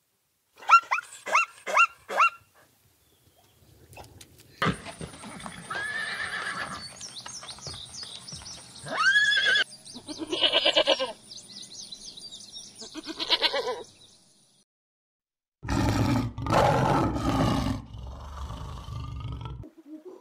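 A sequence of animal calls. About a second in comes a zebra's quick run of five short barking calls, then goats bleating in wavering calls over the next ten seconds, and near the end a louder, rougher call.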